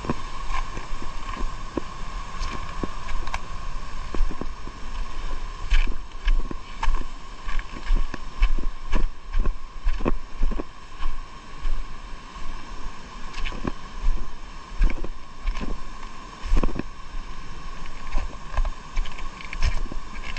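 Small boat moving on water: a steady hum with many irregular knocks and splashes.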